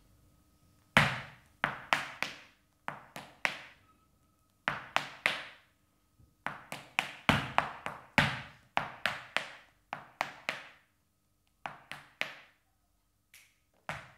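Flamenco dancer's shoes striking the floor in zapateado footwork: sharp heel and toe strikes in quick runs of three to five, separated by short pauses, each ringing briefly in the room. The first strike is the loudest, and the strikes near the end are fewer and softer.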